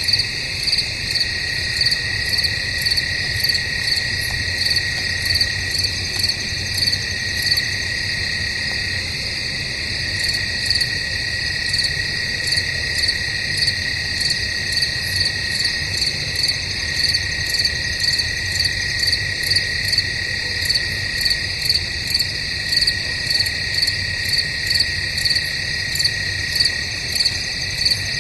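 Crickets chirping at night in a chorus: a steady high trill under louder chirps that repeat evenly, about one and a half a second.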